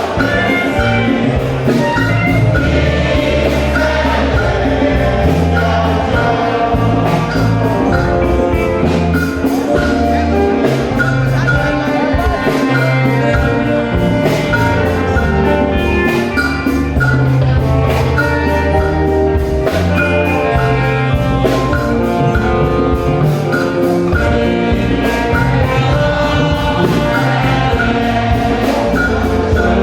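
Gospel hymn sung during a church service, with a steady percussion beat and a bass line under the voices.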